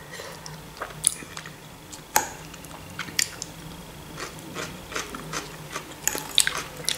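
Close-miked chewing and wet mouth sounds of a person eating soft macaroni with mince and a fresh cucumber-and-tomato salad, with scattered short clicks and smacks.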